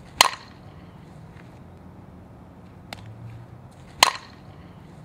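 Fastpitch softball bat hitting a softball twice, about four seconds apart, each a sharp crack with a brief ring.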